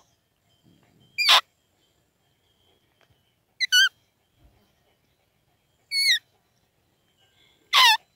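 Roe deer call (Blatter) blown in short fiep calls imitating a roe doe, to lure a rutting roebuck. Each call is a high squeak falling steeply in pitch; they come about every two seconds, with a quick pair near the middle.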